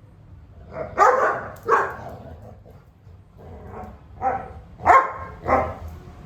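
Dog barking in short yappy bursts, two close together about a second in, then four more in quick succession near the end, as in rough play over a rope toy.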